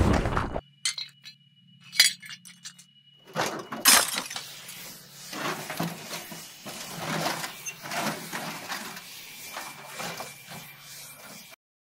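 Film sound effects: a loud burst cuts off in the first second, a few sharp clinks follow, and then comes a long spell of breaking glass, with shards clinking and scattering, that slowly dies away.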